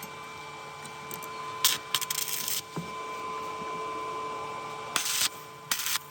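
Stick-welding arc crackling in three short bursts, stitching a weld across a gap, over a steady electrical whine.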